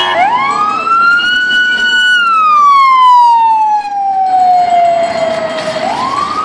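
An emergency vehicle's siren wailing: the tone rises for about two seconds, holds briefly, falls slowly for about four seconds, then starts rising again near the end. Passing car traffic runs underneath.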